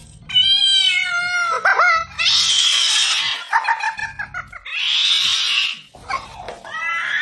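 Tabby cat yowling and meowing insistently: a long, drawn-out meow that sags in pitch, then two long hisses with a pulsing yowl between them, and another meow near the end.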